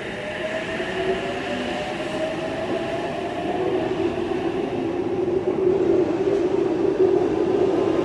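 Oscar H-set electric suburban train pulling away, its traction motors whining in a slowly rising pitch as it gathers speed and getting steadily louder.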